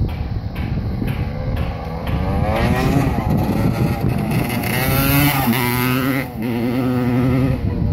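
Kawasaki KX250 dirt bike engine accelerating hard past the camera: a choppy, uneven sound at first, then revving up in climbing pitch through gear changes, with a brief dip at a shift about six seconds in.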